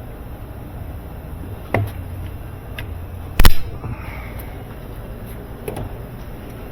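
Reassembly work on a washing machine: a sharp knock about two seconds in, then a loud, very short crack or snap about a second and a half later, over a steady low hum.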